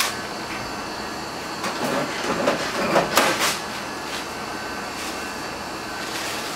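Paper towel rustling and scraping as a wet floor spot is wiped dry, a short run of strokes in the middle, over a steady ventilation hum.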